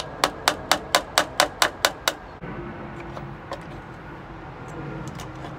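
Claw hammer tapping at the nails in a wooden pallet slat to knock them out: about nine quick sharp strikes, roughly four a second, stopping about two seconds in, then only a few faint clicks.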